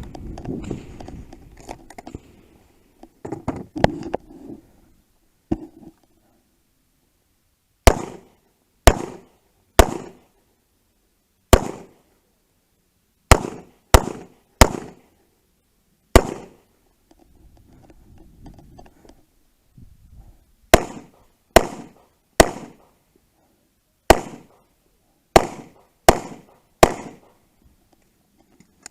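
Gunshots at a 3-gun match: about fifteen sharp shots in irregular groups, each with a short ring. A few softer knocks and clatters come in the first few seconds, before the shooting starts.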